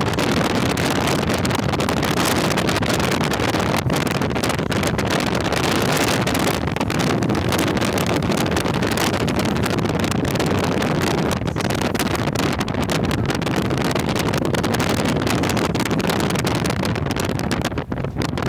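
Wind rushing and buffeting across the phone's microphone at the side window of a moving car, over the steady road noise of the car.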